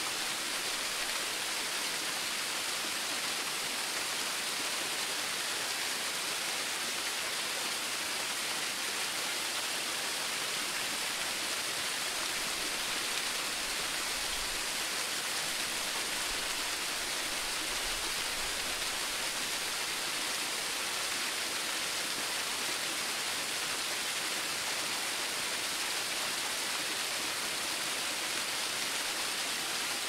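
Flowing water rushing steadily, an even, bright hiss that does not change.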